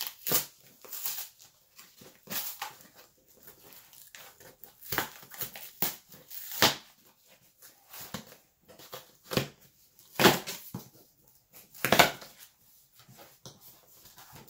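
Stapled corrugated cardboard box flaps being pried and torn open by hand: irregular ripping and scraping bursts of cardboard, some of them sharp and loud, a second or two apart.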